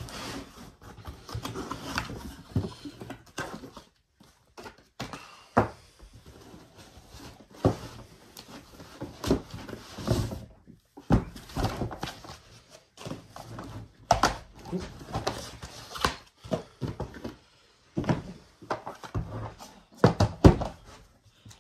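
A portable vacuum sealer being unboxed: cardboard flaps and packaging rustling and scraping, with many irregular knocks and thumps as the plastic unit is pulled out and set down on the wooden bench.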